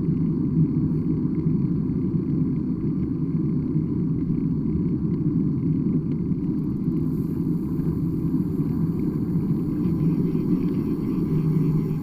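Steady low rumble with no clear pitch, even in level throughout.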